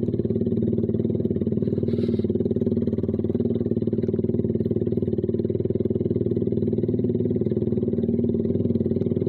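Carburetted Suzuki Satria FU single-cylinder engine running through a Kau Mahachai racing exhaust at a steady low speed. The note stays even, with no revving.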